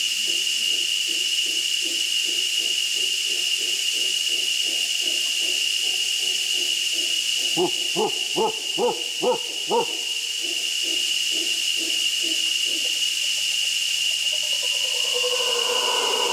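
Mantled howler monkeys calling: a long run of rhythmic grunts, about three a second, with a louder group of about six grunts near the middle, building into a long howl near the end. A steady high insect drone runs underneath.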